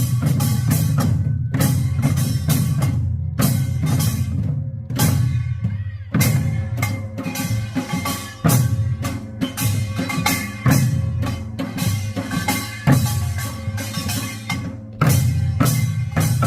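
Korean pungmul percussion playing a fast, driving rhythm: deep buk barrel-drum beats under bright, sharp metal strikes, with brief breaks in the pattern.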